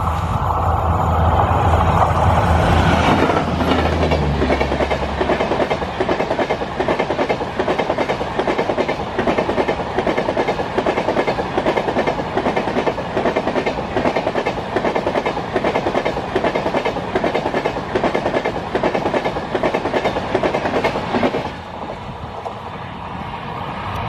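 Diesel-hauled express train passing at speed: the diesel locomotive's engine drone is heard for the first few seconds as it goes by, then the rhythmic clickety-clack of the coaches' wheels over rail joints as the rake rushes past, dropping off near the end as the last coach passes.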